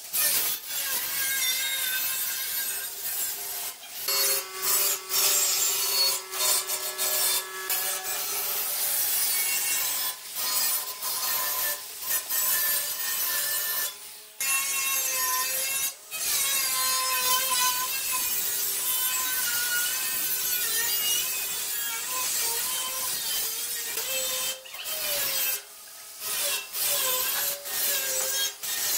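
Angle grinder with a thin cutting disc slicing through a steel drum: a steady motor whine over a harsh grinding hiss, its pitch wavering as the disc bites, with several short breaks.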